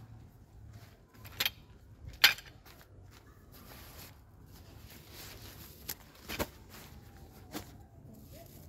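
Nylon groundsheet and packed gear sacks being handled: soft rustling of the fabric, with several sharp crinkles or taps, the loudest about two seconds in.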